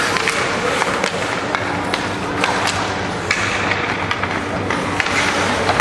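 Ice hockey play: skates scraping on the ice under a steady rink noise, with many sharp clacks of sticks and puck coming at irregular moments, and thuds.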